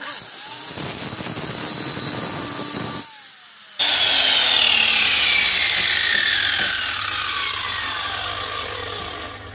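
Handheld angle grinder grinding the steel of a lawnmower blade clamped in a vise, taking metal off its heavy side to balance it. A harsh grinding hiss dips briefly about three seconds in and comes back louder. Its whine then falls steadily in pitch and fades away near the end as the disc winds down.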